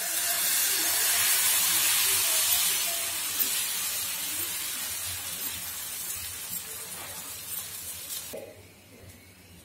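Dosa batter sizzling on a hot tawa as it is spread in circles with a ladle. The hiss is strongest in the first few seconds, slowly fades, and drops away near the end.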